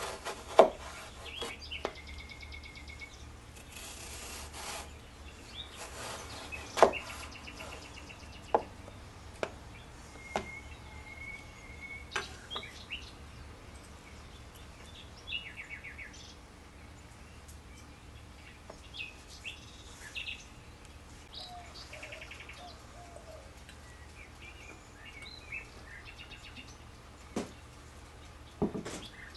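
Kitchen knife slicing eggplant lengthwise on a wooden cutting board: irregular sharp knocks as the blade meets the board, the loudest about a second and seven seconds in. Small birds chirp and twitter in the background.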